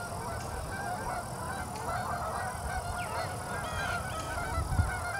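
A flock of geese honking, many short calls overlapping without a break.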